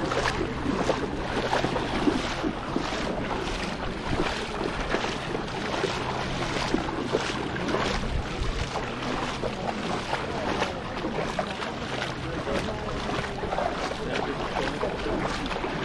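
Footsteps splashing through ankle-deep seawater at a regular walking pace, with wind buffeting the microphone.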